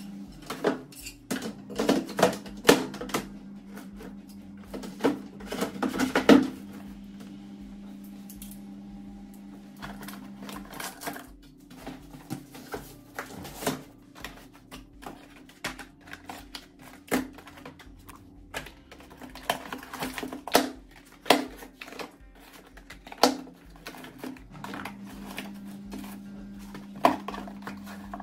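Cardboard toothbrush boxes and plastic toiletry bottles being handled and set down in a wooden drawer: irregular clicks, taps and knocks, with the loudest knocks about two and six seconds in.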